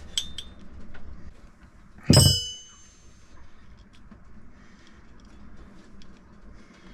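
Metal tools being handled: a couple of light metallic clinks, then about two seconds in a loud metallic clang that rings briefly.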